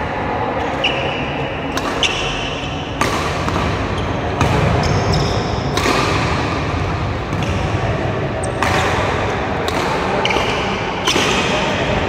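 Badminton rackets striking a shuttlecock in a doubles rally, a sharp crack every one to three seconds. Between the hits come short high squeaks of court shoes on the wooden floor.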